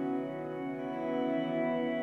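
Ambient background music: soft sustained organ-like chords that shift slowly from one held note to the next.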